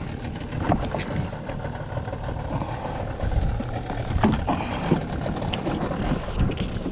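Strong wind buffeting the microphone, a steady low rumble with a rushing hiss over it, broken by a few small knocks and clicks.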